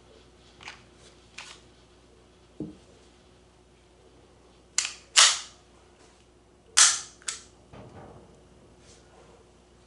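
Maruzen Walther PPK airsoft pistol fitted with a silencer, firing: a few light clicks, then four sharp shots in two close pairs about five and seven seconds in.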